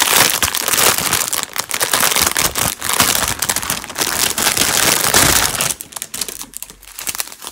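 Crinkling of clear plastic bags, an outer bag holding bundled zip-lock bags of diamond-painting drills, being handled. It is loud and crackly, then eases off about six seconds in.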